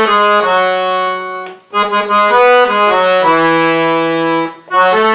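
Accordion playing a slow melodic passage in A major, with held chords under the melody, in three phrases separated by two short breaks.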